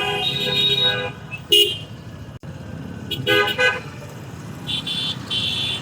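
Several vehicle horns honking in slow, jammed city traffic, over a low rumble of engines: a horn blast about a second long at the start, then shorter toots about one and a half, three and a half and five seconds in.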